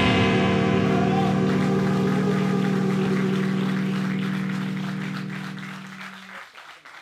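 A live rock band's final chord held and ringing out, fading away over about six seconds until its low notes stop. Scattered applause comes in about a second in.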